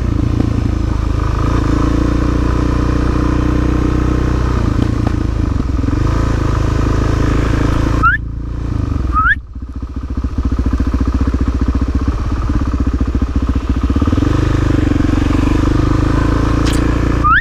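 Suzuki DR-Z400SM supermoto's single-cylinder four-stroke engine running as the bike is ridden, its note dropping off briefly twice, about eight and nine and a half seconds in, as the throttle comes off.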